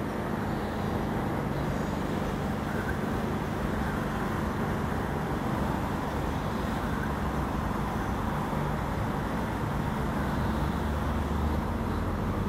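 Steady rumble of railway station ambience, with a low steady hum.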